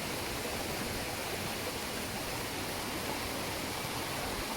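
Steady rushing of a mountain waterfall and stream, an even wash of water noise.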